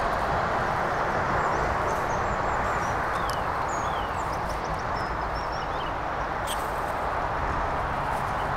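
Steady rushing outdoor background noise, with a few quick high bird chirps and twitters between about one and five seconds in.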